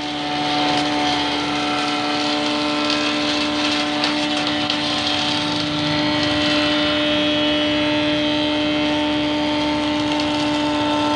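Oscar WJ 200C woodworking machine running steadily at speed, a constant motor and cutter hum with a high whine above it.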